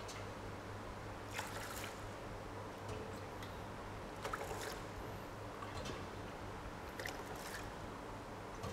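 Water scooped from a steel measuring jug and poured into a bowl of soybeans to soak them, a few short splashing pours a couple of seconds apart, over a low steady hum.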